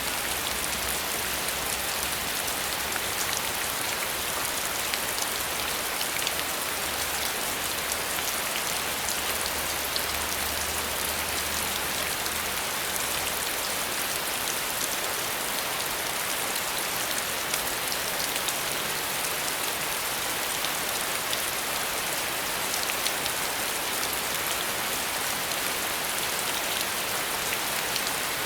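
Steady, even rain falling, a continuous hiss flecked with the ticks of individual drops.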